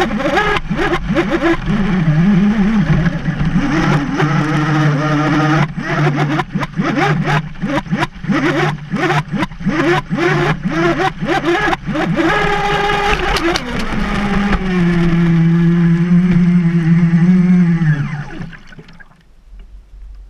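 Turnigy 3974-2200KV brushless motor of a Graupner Mega Dragstar III RC boat whining at speed, its pitch rising and falling with the throttle, with a rapid run of knocks through the middle. It holds a steady high pitch, then cuts off near the end, leaving a much quieter tail.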